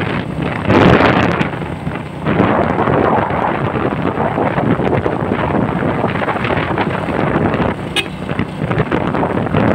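Wind buffeting the microphone in uneven gusts while travelling, over the noise of a moving vehicle, with a single sharp click about eight seconds in.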